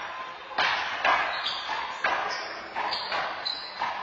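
Handball rally: the rubber handball smacked by hand and striking the front wall and floor, a string of sharp slaps, each ringing on in the court.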